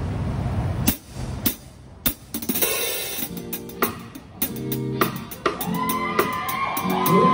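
Drum kit played along to a recorded rock song: snare, cymbal and hi-hat hits over the track's guitar and bass. Sharp hits start about a second in, and the pitched backing music comes in fuller about two seconds in.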